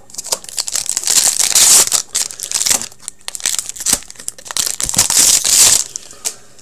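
Hockey card pack wrappers being torn open and crinkled, in two long rustling stretches with quick clicks and card handling between them.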